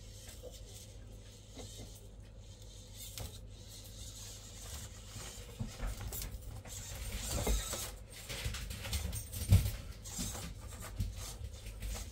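Small-scale RC rock crawler being driven over rough ground: scattered clicks, creaks and scrapes from its tyres, chassis and drivetrain, growing busier in the second half, with one sharp knock about two-thirds of the way through.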